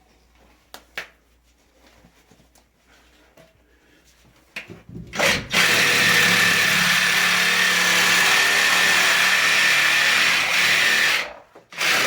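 Power saw cutting through plastic drain pipe: after a few quiet seconds of faint handling clicks, a short burst, then about five and a half seconds of steady, loud cutting with a high steady whine, stopping near the end, and a brief final burst as the cut finishes.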